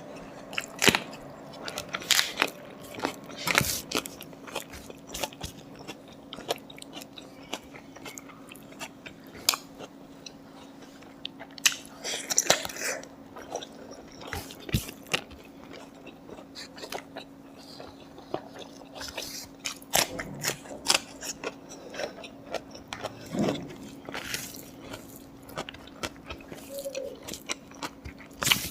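A person chewing and biting food close to the microphone, with irregular sharp crunchy bites.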